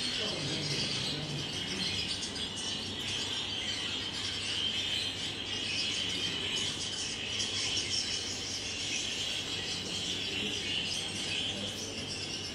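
Room tone: a steady high hiss with faint low background noise and no distinct events.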